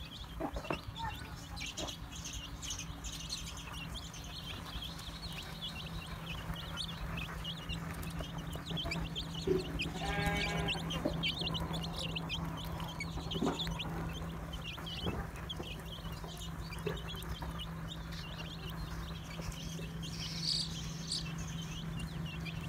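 Young chicks peeping over and over, a stream of short high peeps, with one longer pitched animal call near the middle and a steady low hum underneath.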